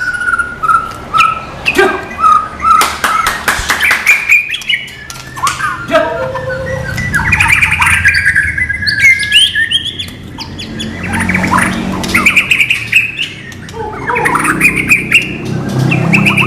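White-rumped shama (murai batu) singing a varied run of loud whistled phrases that slide up and down, broken up by rapid clicking, chattering notes.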